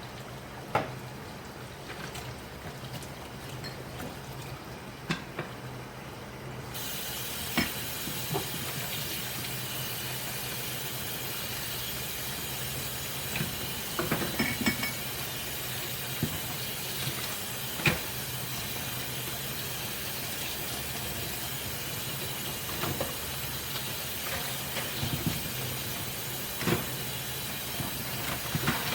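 Washing dishes by hand in a sink: water hisses steadily and grows stronger about seven seconds in, as from a tap running harder. Dishes and utensils clink now and then, in a short cluster around the middle.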